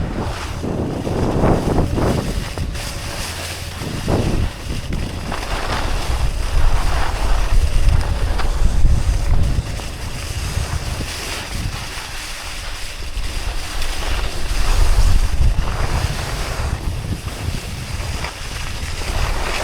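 Skis hissing and scraping over snow while skiing downhill, with wind buffeting the microphone. The noise rises and falls several times.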